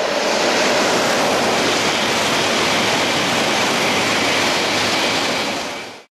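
E7-series Shinkansen passing through the station at speed on wet track, a loud steady rushing noise of the train and the spray it throws up. It cuts off suddenly near the end.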